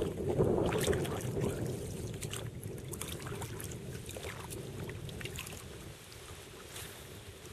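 Kayak paddle splashing in the water, then water lapping and trickling around the kayak hull with scattered small drips and splashes. The splashing is loudest about half a second in and then fades.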